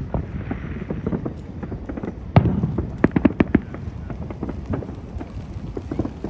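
Fireworks going off, a continual run of bangs and crackles, with a loud bang about two and a half seconds in and a quick string of sharp bangs just after three seconds.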